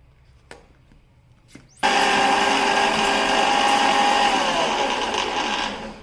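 Electric mixer grinder (mixie) grinding a jar of dry roasted whole spices into tea masala powder: a couple of light clicks, then the motor starts suddenly about two seconds in and runs at full speed for about four seconds. Near the end it is switched off and winds down, its whine falling in pitch as it fades.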